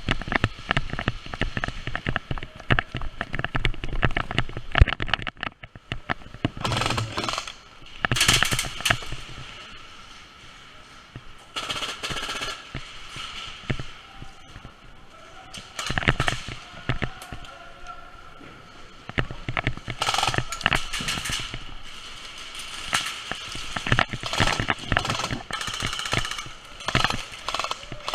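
Airsoft guns firing in repeated bursts of rapid clicking shots, with short pauses between the bursts.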